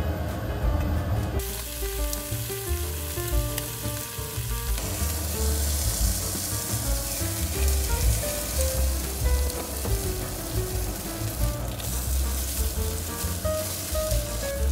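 Pork belly slices sizzling as they fry in a hot pan. The sizzle picks up about a second in and gets louder again a few seconds later.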